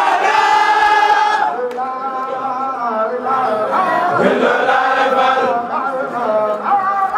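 A large crowd of men and boys chanting dhikr (Senegalese sikar) together in unison, singing long drawn-out notes that slide in pitch.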